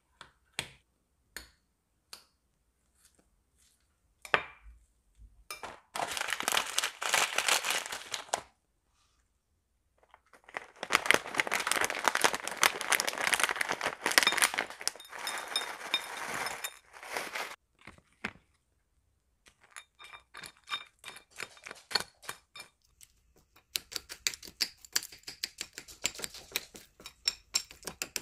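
Handling sounds of food prep: a plastic spoon scraping wet food out of a foil tray with scattered clicks, then a clear plastic bag crinkling at length as dried treats are shaken out, and near the end rapid clicking of the plastic spoon against a ceramic plate as the food is mixed.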